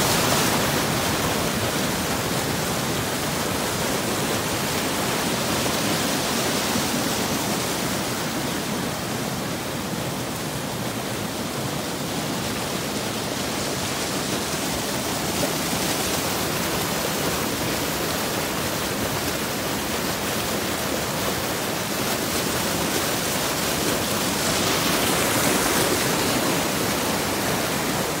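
Muddy floodwater rushing down a small stream channel that has overflowed its banks after heavy rain, a steady loud churning rush that swells a little near the end.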